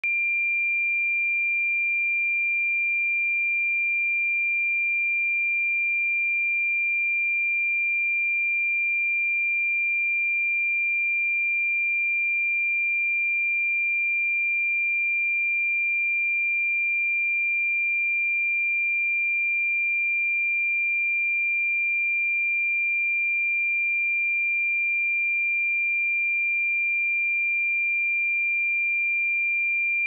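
A pure 2383 Hz sine-wave test tone, one steady high-pitched note held at a constant level with no other sound.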